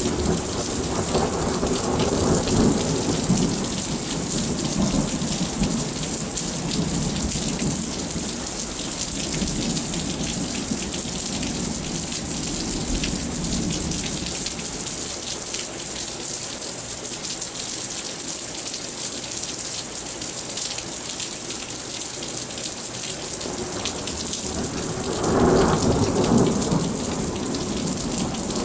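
Thunderstorm: steady rain falling, with thunder rumbling on and off and a louder roll of thunder near the end.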